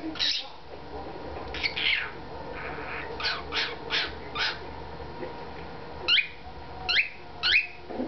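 Cockatiel singing in short, sharp chirps: four in quick, even succession near the middle, then three sweeping whistled notes near the end.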